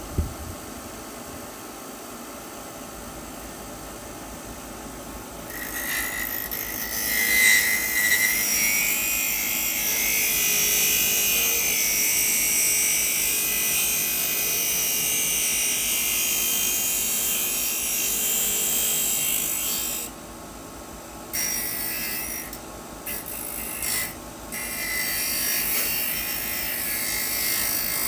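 A grinder running, then grinding the metal of a pumpkin-carver blade down to a marked line: a loud, steady, high grinding hiss starts about five seconds in. It breaks off briefly about twenty seconds in and twice more soon after as the blade is lifted from the wheel and pressed back on.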